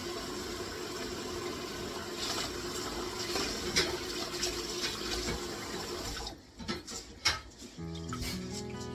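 Water running steadily, as from a kitchen tap, with a faint hum, for about six seconds before it stops. A few sharp knocks follow, and music with held notes begins near the end.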